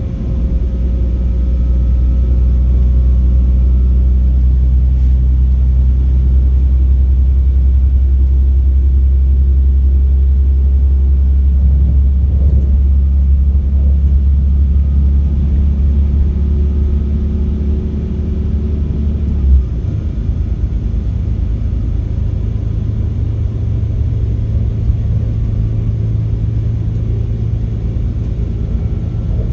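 A Class 196 DMU's MTU six-cylinder diesel engine drone with a thin, high turbo whistle above it. About two-thirds of the way through there is a single thump, the drone's pitch changes and the whistle drops lower.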